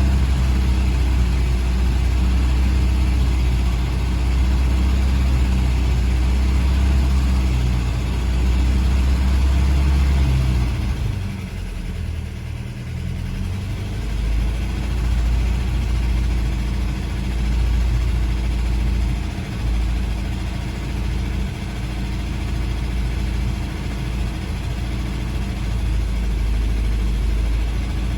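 GAZ M20 Pobeda's side-valve four-cylinder engine idling as it warms up the coolant. About eleven seconds in its deep low drone drops away and it runs on a little quieter.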